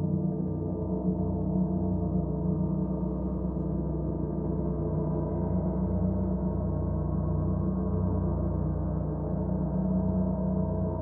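Bronze gong with a hammered centre, hanging free and played up softly, so its ringing builds into a sustained, dense wash of many overlapping tones with a gently wavering loudness.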